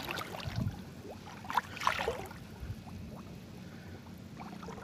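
Water splashing and lapping around a small boat, with a few short sharp splashes or knocks about one and a half to two seconds in.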